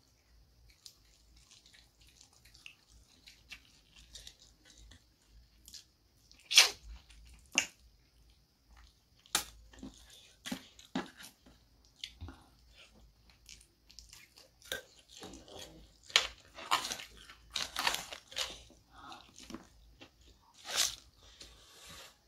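A person eating fried chicken close to the microphone: chewing with irregular sharp crunches. The crunches are sparse at first, with one loud crunch about six seconds in and a dense run of them between about sixteen and nineteen seconds.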